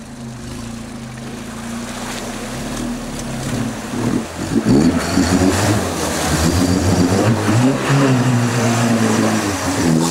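Off-road mud truck's engine running, then revving hard from about four seconds in, its pitch rising and falling as the truck works through the mud and the sound grows much louder.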